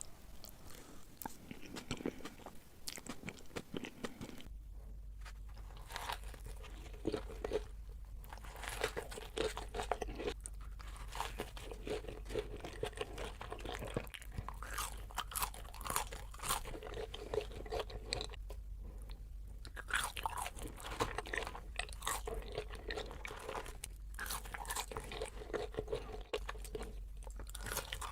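Close-miked mouth sounds of someone eating crunchy food: repeated sharp crunches of biting and chewing.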